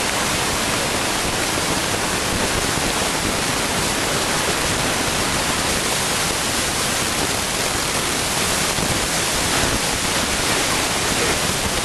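Steady, loud, even hiss that stays at one level throughout, with no knocks or distinct sounds standing out from it.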